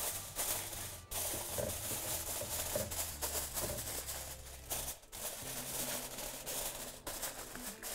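Aluminium foil crinkling and rustling as it is pressed and folded over a baking dish, in a string of short crackles with brief pauses.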